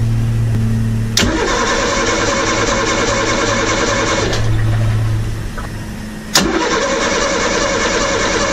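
An old sailboat's diesel engine started twice: a steady hum, then a click and the engine turning over and running for about three seconds before it stops. The hum returns briefly, and about six seconds in a second click brings the engine back, and it keeps running.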